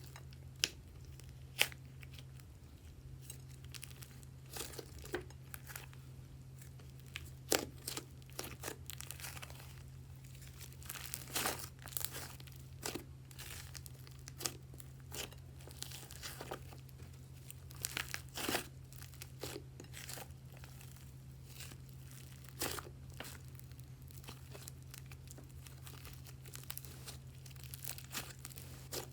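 Butter slime being worked by hand, stretched, folded and pressed, giving irregular sticky crackles and pops.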